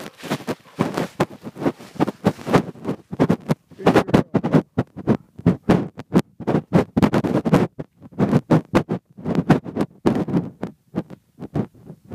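Dog panting hard and fast, about five breaths a second, after a run.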